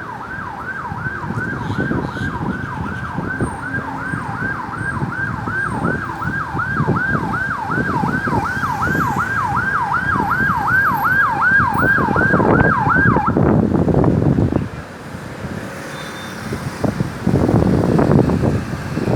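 Ambulance siren on a fast yelp, sweeping up and down nearly three times a second over road traffic noise. The siren cuts off about two-thirds of the way through, leaving the rush of passing vehicles.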